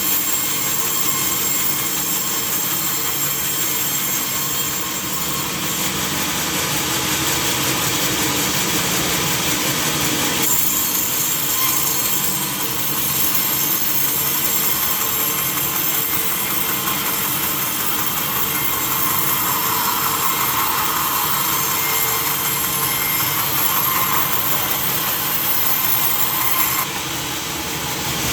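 Sawmill saw running and cutting teak wood: a steady, loud machine noise that shifts abruptly about ten seconds in and again near the end.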